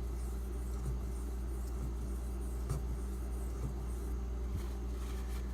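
Faint scraping of a steel knife blade being stroked across a wet Imanishi waterstone, with a few light ticks, under a steady low electrical hum.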